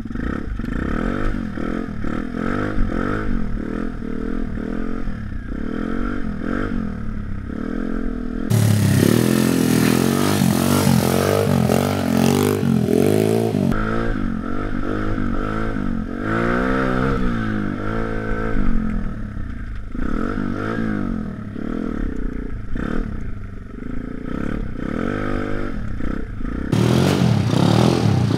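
A pit bike's 160cc YX single-cylinder engine revving up and down over and over as it is ridden, heard up close, its pitch rising and falling with each burst of throttle. The sound changes abruptly a few times, and near the end switches to a motorcycle engine heard from beside the trail as the bike approaches.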